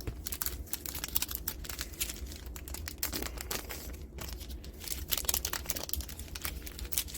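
Foil trading-card booster pack wrappers crinkling as the packs are torn open by hand: a dense run of crackles with a short pause about four seconds in.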